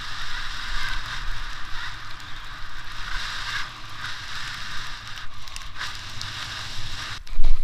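A rider slides fast through fresh powder snow, making a steady hissing rush that swells and eases, with wind rumbling on the microphone. A sudden loud bump comes near the end.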